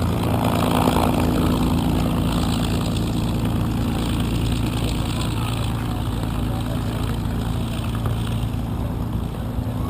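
P-51 Mustang's Packard Merlin V-12 engine running steadily with the propeller turning, holding a constant pitch.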